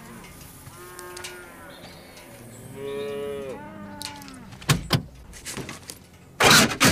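A cow mooing twice in long, drawn-out calls, the second louder. A sharp knock follows, then a loud burst of noise near the end.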